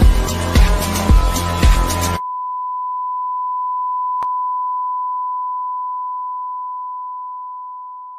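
Music with a heavy beat cuts off abruptly about two seconds in, leaving a single steady high electronic beep tone. The tone swells, with a sharp click about four seconds in, then slowly fades.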